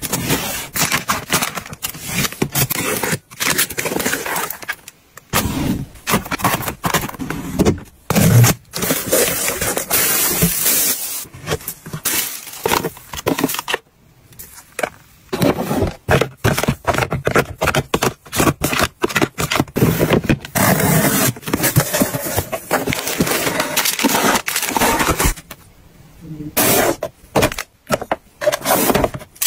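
Close-up handling of packaging and toiletries: plastic packaging crinkling, with cardboard boxes and plastic bottles clicking, tapping and scraping as they are unpacked and set into baskets and organizers. It comes as many short clicks and crackles, with a few brief pauses.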